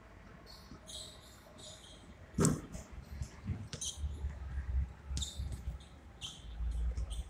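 Outdoor park ambience: short high chirps now and then, over a low rumble that swells in patches like wind on the microphone, with one sharp thump about two and a half seconds in.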